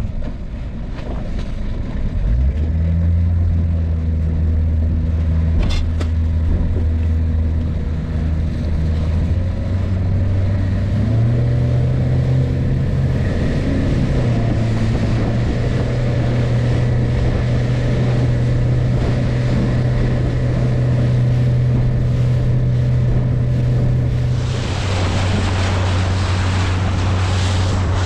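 Small boat's outboard motor running under way: it picks up about two seconds in, revs higher about eleven seconds in, then eases back near the end as the rush of spray and water off the hull comes in.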